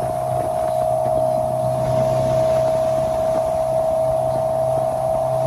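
Motorboat engine running at a steady speed, a drone that holds one pitch, under the rush of water and wind from the wake.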